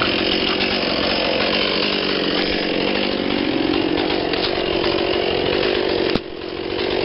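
Chainsaw running steadily while cutting wood. About six seconds in there is a sharp knock, and the saw's sound drops away and then builds back up.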